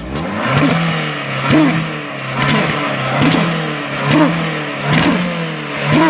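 Volkswagen Gol G3 engine being revved in repeated throttle blips, about one a second, each rising and falling in pitch with a short crack near its top. The sound comes through the car's original exhaust fitted with an improvised modification meant to give it a sporty note.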